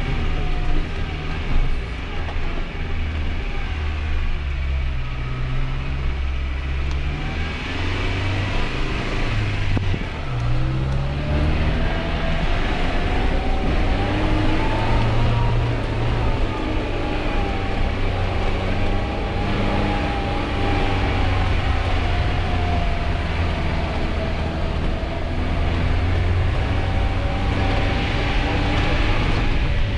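Suzuki Grand Vitara's four-cylinder petrol engine running at low speed, its revs dropping about a third of the way in, then rising and easing up and down.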